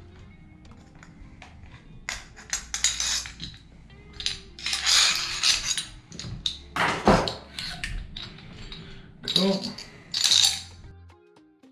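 Metal and plastic parts of a Wells M4-style gel blaster and a screwdriver being handled during disassembly: several irregular bursts of clinking, scraping and clattering on the bench, the loudest about halfway through and near the end. Quiet background music runs underneath.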